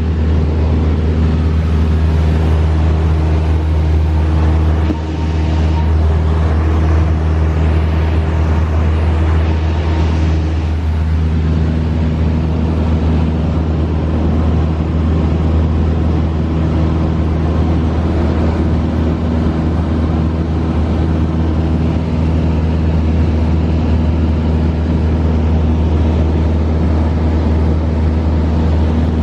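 Engine and propeller drone of a small single-engine propeller plane in flight, heard inside the cabin: a loud, steady low hum, with a brief dip about five seconds in.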